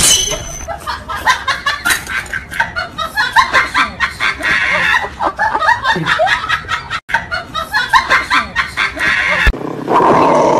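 A person laughing in rapid, repeated bursts, cut briefly about seven seconds in; near the end it gives way to a steadier, held sound.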